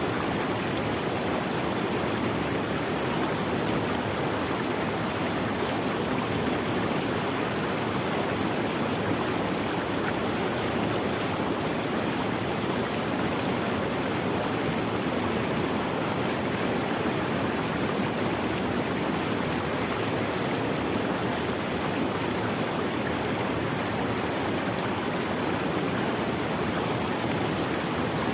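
Running water of a stream, a steady, even rush with no change.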